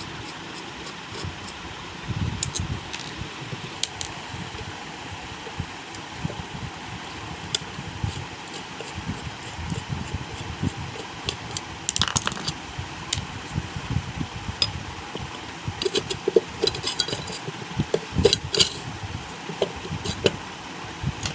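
Scattered metallic clinks, taps and knocks of tools and nuts being worked while a ceiling fan is taken apart. The clicks come more often in the second half, over a steady background noise.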